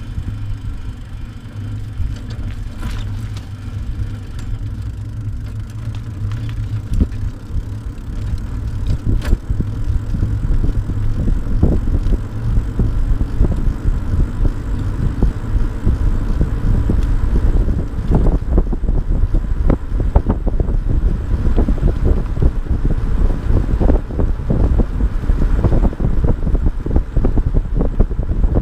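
Wind buffeting the microphone of a camera on a moving bicycle dog trailer, over the rumble of its wheels rolling on asphalt, with scattered knocks and rattles from the trailer. It grows louder about eight seconds in as the ride speeds up.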